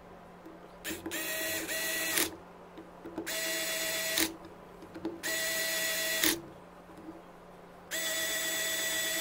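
Cordless electric screwdriver running in four short bursts of about a second each, a steady motor whine, as it drives the screws of a pump's head plate home one by one.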